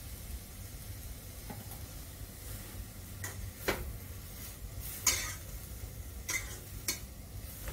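Slotted metal spatula scraping and clanking against a metal kadai as chopped tomatoes, capsicum and peas are stirred over high heat, about five strokes with the loudest about five seconds in, over a faint sizzle.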